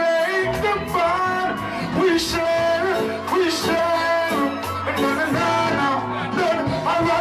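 Live band music with a singer holding long, bending vocal lines over a steady bass.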